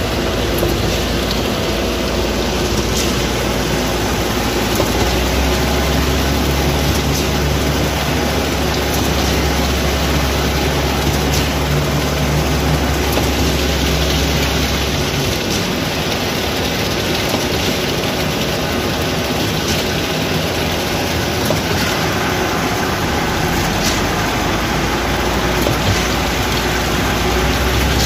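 Heavy diesel machinery running steadily as a concrete mixer truck turns its drum to discharge concrete down its chute into a concrete pump's hopper. The deep engine note grows stronger about five seconds in and drops back about fifteen seconds in.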